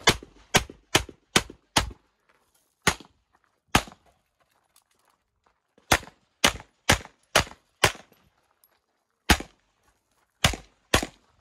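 Tanfoglio semi-automatic pistol firing rapid shots: about fifteen in all. The first run of five comes at roughly two or three a second, followed by two single shots. After a pause of about two seconds comes another run of five, then a single shot, then a last pair.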